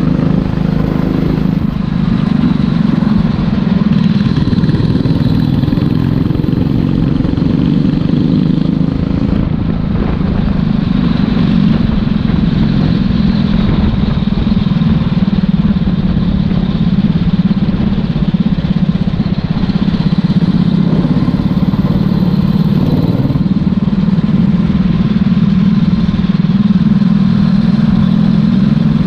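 Racing kart engine heard onboard, running hard at racing speed, its pitch dipping and climbing again as the kart slows for corners and accelerates out.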